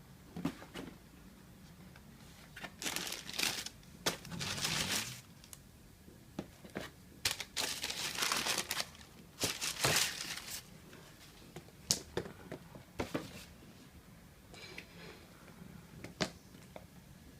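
Paper packaging crinkling and rustling in irregular handfuls as a shoebox is unpacked, with a few short sharp clicks near the end.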